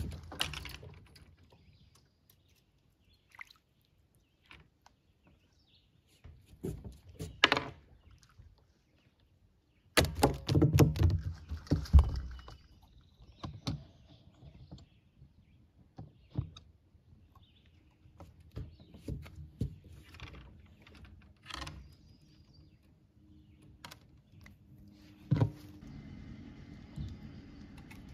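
Scattered knocks, clicks and thumps of fishing gear being handled, with the loudest cluster of thumps about ten seconds in and a sharp knock near the end. A faint steady drone comes in during the last few seconds.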